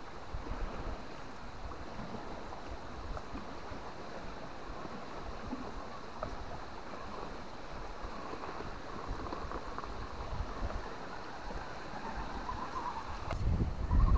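Wind rumbling on the microphone, with the faint whine of a small RC crawler's electric motor rising and falling with the throttle as it climbs rock. The wind buffeting gets much heavier near the end.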